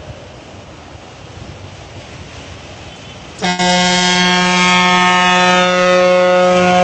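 Vehicle traffic passing at low level, then a vehicle horn sounds about halfway through in one long, steady blast that holds for over three seconds.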